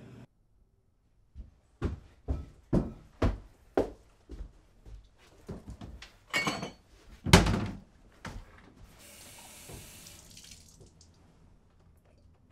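Footsteps on a kitchen floor, about two a second, then the knocks and clinks of a drinking glass being handled, the loudest a single knock about seven seconds in. Then a kitchen tap runs into the glass for about two seconds.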